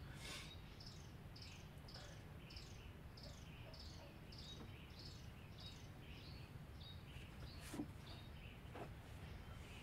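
Faint ambience of high, short chirps repeating evenly about twice a second over a low steady hum, with two soft clicks near the end.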